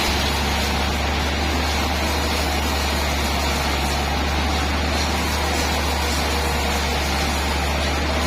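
Sawmill machinery running steadily with a low, constant engine drone.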